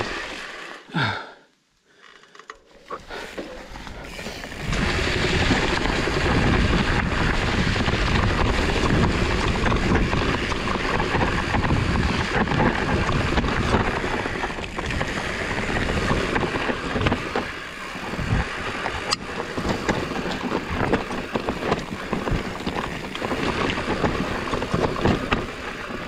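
Wind noise on the microphone and the rolling noise of a Trek Farley fat bike riding a trail. The sound drops out briefly about a second in, then builds back and holds steady and loud from about four seconds on.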